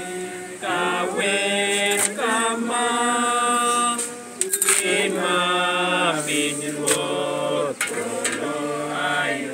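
Mourners singing a hymn together in long held notes, with a few sharp clicks over the singing.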